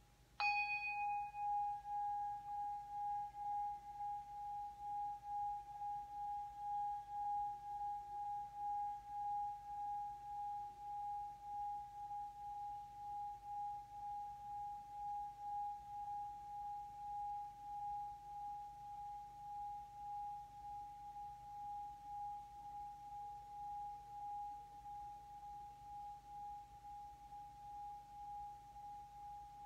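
Brass bell struck once with a padded wand about half a second in, then kept ringing on one steady tone as the wand is rubbed around its rim, singing-bowl style. The tone pulses slightly and barely fades.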